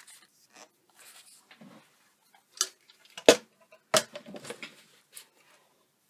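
Hands moving paper card and craft tools on a tabletop: light rustling and scraping with three sharp knocks, the loudest about three seconds in.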